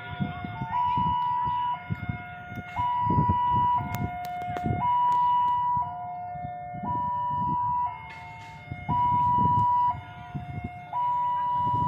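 Two-tone electronic warning alarm, a high note and a low note taking turns about once a second each, over a low rumble.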